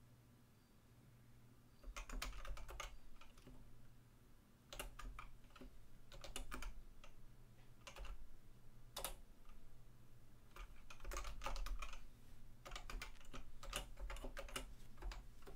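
Typing on a computer keyboard: irregular runs of keystroke clicks with short pauses, starting about two seconds in.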